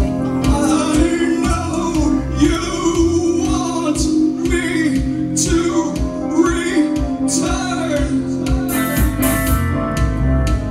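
Live synth-driven dark-wave rock band playing: a held synthesizer note and electric guitar over a steady kick-drum beat.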